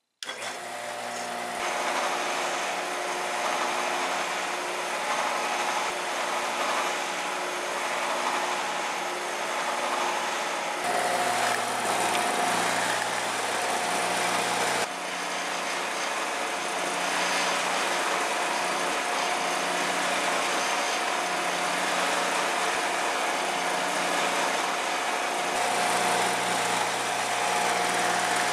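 Shopsmith Mark V's motor switched on and spinning up, then running steadily while its speed dial is turned through the speed settings. The steady hum changes pitch in distinct steps several times as the speed is changed.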